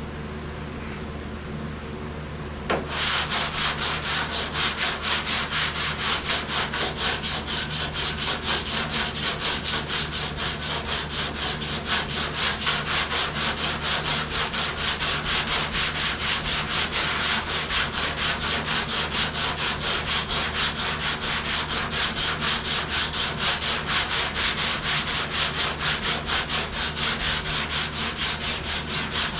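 Sandpaper rubbing back and forth by hand over a primed vehicle body panel. It starts about three seconds in, in quick, even strokes of two or three a second, over a low steady hum.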